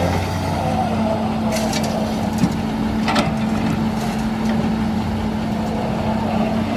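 Heavy earthmoving machine's engine running steadily, with a few sharp knocks about a second and a half, two and a half, and three seconds in.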